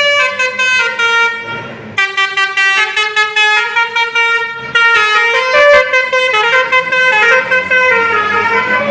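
Bus telolet horn, a multi-tone air horn, playing a quick melody of short notes that step up and down, with a brief break about two seconds in.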